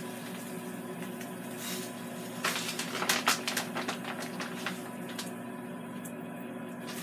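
Raw seasoned chicken wings sizzling as they are laid on a hot, preheated grill grate, with a plastic zip bag crinkling, over a steady low hum. The sizzle comes in short bursts a couple of seconds in and again a little later.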